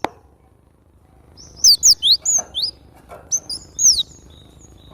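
Cinereous tit (glatik batu) singing actively, a rapid series of sharp, high whistled notes that sweep up and down. The notes come in two bursts, about one and a half seconds in and again about three seconds in.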